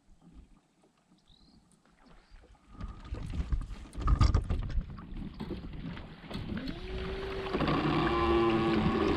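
Knocks and rubbing of gear against a kayak hull on the water, with one louder knock about four seconds in. A steady hum with several pitches starts about seven seconds in.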